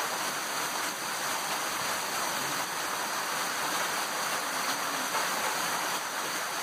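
Heavy rain mixed with hail falling steadily on the ground, a dense, even hiss with no let-up.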